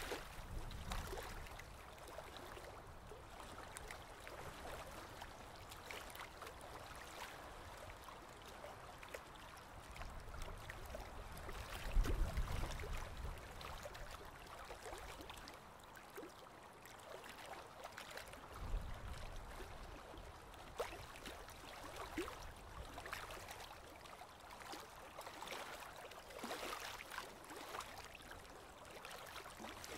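Faint underwater ambience picked up through the camera: a steady crackle of fine clicks, with two low rumbling swells, one about 12 s in and another near 19 s.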